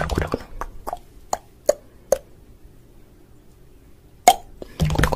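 Short plopping pops: four in quick succession about half a second apart, then a louder single pop near the end.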